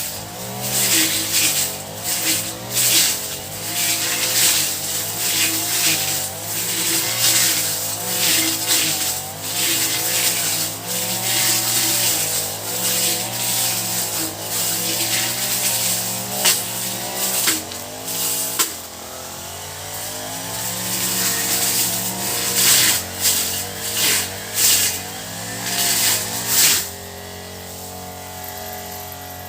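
Honda four-stroke grass cutter engine running, its pitch wavering up and down, with many short, sharp bursts of rasping noise over it. About 27 seconds in it settles to a steadier, quieter run.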